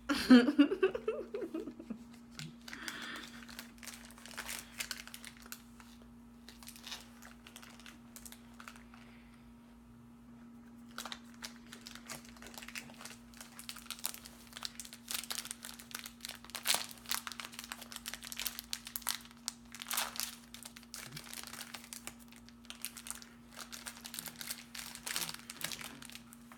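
Plastic candy wrapper crinkling and close-up chewing of a coconut candy bar, as scattered crackles and clicks. There is a brief vocal sound at the start and a faint steady low hum underneath.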